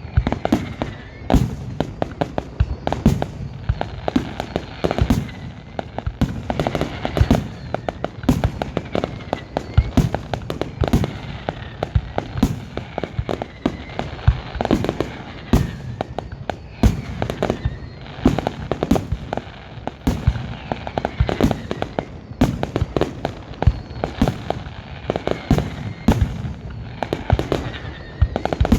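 Fireworks display going off in a dense, continuous barrage of sharp bangs and crackles, several a second, with faint rising whistles of shells climbing.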